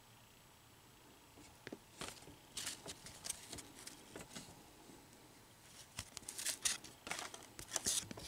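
Baseball cards being flipped through by hand: papery slides and flicks of card stock against card stock. The strokes begin about a second and a half in, ease off for a moment, then come faster and louder from about six seconds in.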